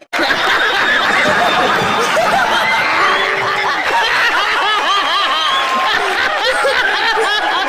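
Many voices laughing at once, loud and continuous, cutting in and out abruptly.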